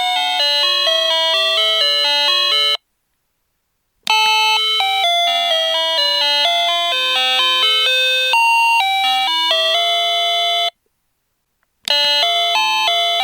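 Daiso call chime playing 8-bit style electronic melodies of quick beeping notes. One tune ends about three seconds in; after a short pause a second tune plays for about seven seconds, and near the end a switch click comes before a third tune starts.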